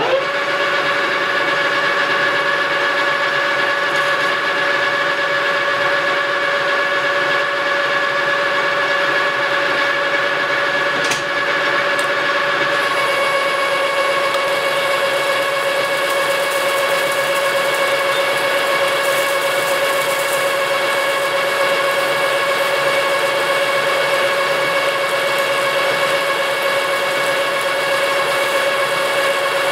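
Metal lathe running under a rough turning cut on a round aluminium blank, taking about a tenth of an inch off the outside diameter: a steady whine from the gearing with several even tones. The tone shifts slightly a little under halfway through.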